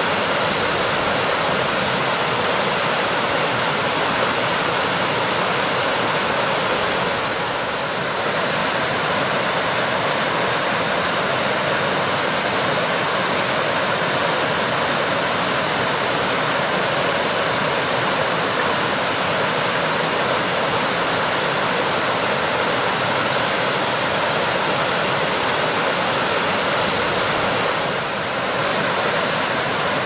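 Waterfall cascading down a rock face into a rocky stream: a steady rushing of water, dipping slightly in level twice, about a quarter of the way in and near the end.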